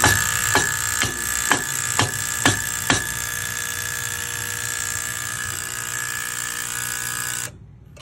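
Gas valve on a Burnham IN5 gas steam boiler buzzing loudly after ignition, with sharp clicks about twice a second over the first three seconds, then cutting off suddenly near the end. The noise is the sign of a defective gas valve.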